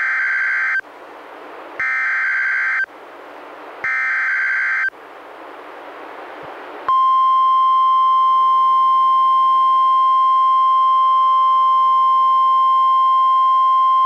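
NOAA Weather Radio alert opening: three one-second bursts of SAME header data, each followed by about a second of radio hiss. About seven seconds in, the steady single-pitch 1050 Hz warning alarm tone starts and holds.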